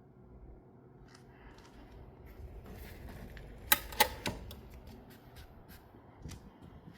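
Handling noise with a series of sharp clicks, the two loudest close together about four seconds in, then a few fainter clicks.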